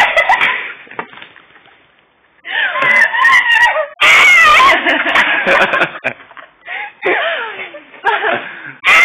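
A young woman's voice shrieking and laughing wordlessly in loud, high-pitched, sliding yells with short breaks, starting about two and a half seconds in after a near-quiet pause.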